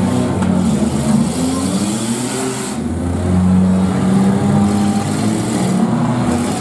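Demolition derby cars' six-cylinder engines running hard and revving, the pitch climbing and dropping about two seconds in and then holding strong as the cars push against each other.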